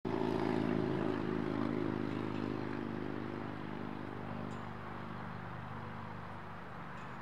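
A motor vehicle's engine running at a steady pitch, loudest at the start and fading gradually as it moves away.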